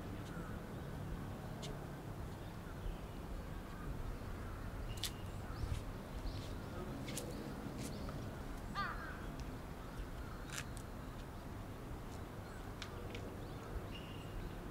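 Outdoor ambience of birds calling over a low steady rumble. One call slides downward about nine seconds in, and there are short high chirps and scattered sharp clicks.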